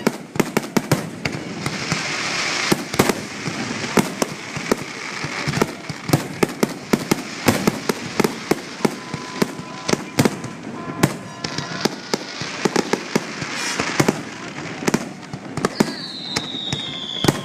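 Fireworks grand finale: a rapid, dense barrage of shell bangs with stretches of crackling, and a whistle falling in pitch near the end.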